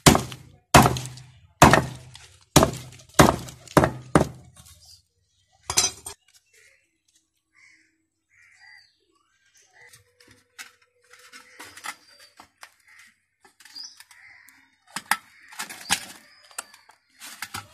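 A run of loud, sharp crashing knocks, about one a second, stopping about four seconds in, with one more shortly after; then only faint scattered clicks and small bird-like chirps.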